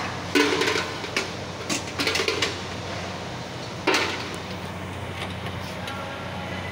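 Hand tools clinking and knocking on the metal casing of a Toyota Aqua hybrid battery pack as its bolts are undone. There are several sharp knocks, the loudest about half a second and four seconds in, over a steady low hum.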